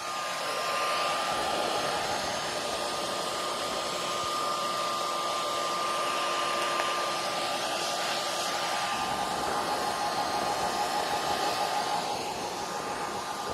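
A 6-gallon shop vac running, its motor giving a steady high whine over the rush of air through the hose. It eases off slightly near the end.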